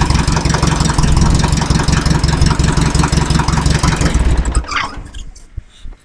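Fiat 352C crawler tractor's diesel engine running with a steady rapid clatter, then shut off: it cuts out about four and a half seconds in.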